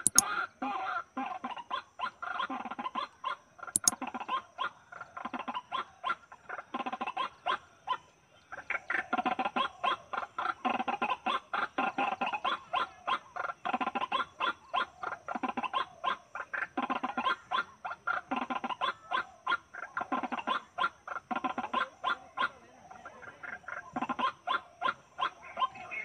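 White-breasted waterhen calling: a fast, rhythmic run of short harsh notes, over and over, pausing briefly about eight seconds in.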